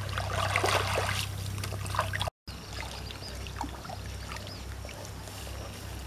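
Pond water splashing and dribbling as a broad leaf is swished and rinsed in it by hand, loudest in the first two seconds. After a short cut it is quieter, with only a few faint ticks.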